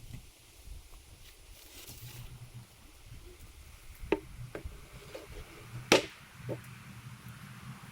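A few sharp knocks, the loudest about six seconds in, over a faint low hum.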